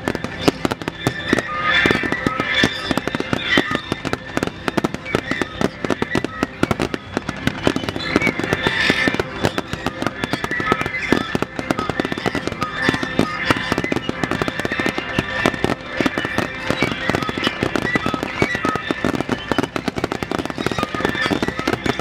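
Fireworks crackling densely and without pause, many small sharp pops a second, with show music playing underneath.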